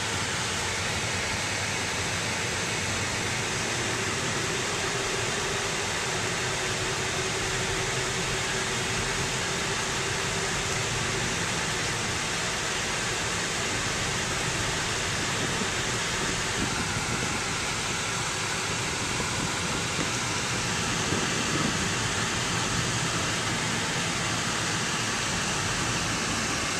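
Steady cabin noise of a car driving slowly on a packed-sand road: an even rush of tyre, engine and air noise heard from inside the car, with a faint steady hum from about four to eleven seconds in.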